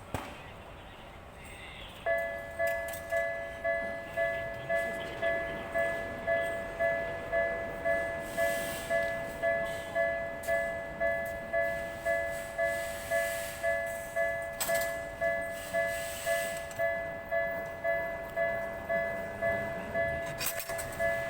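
Japanese railway level-crossing warning bell starting about two seconds in and ringing a steady, evenly repeated two-tone ding, about one and a half to two strikes a second.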